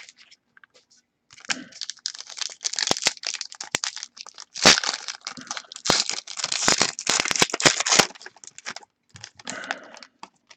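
Plastic wrapping on a trading card pack crinkling and tearing as it is pulled open by hand, with many sharp crackles. It starts about a second in, is loudest in the middle, and trails off into a few softer crinkles near the end.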